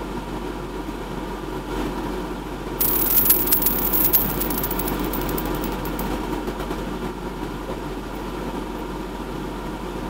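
Supercooled water freezing rapidly in a glass beaker. About three seconds in, a sudden burst of fine crackling starts as ice crystals spread across the water, then thins out over the next few seconds. A steady machine hum runs underneath.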